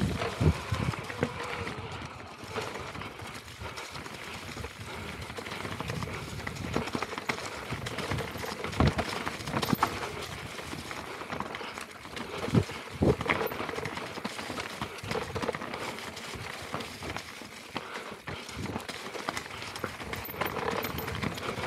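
Mountain bike rattling down a rocky trail: tyres crunching over loose stones and leaves, with constant clatter from the bike and a few heavier knocks where it hits bigger rocks.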